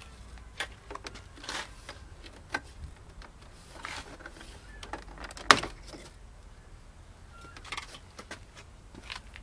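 Hands handling a Land Rover Freelander's rear door and its plastic trim panel: scattered light clicks and knocks, with one sharp, louder click about five and a half seconds in.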